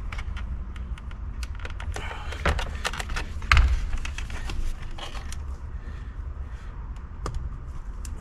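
Small clicks and taps of plastic connectors and wiring being handled at a steering wheel hub, with one louder knock about three and a half seconds in as the plastic airbag module is brought up against the wheel. A steady low rumble runs underneath.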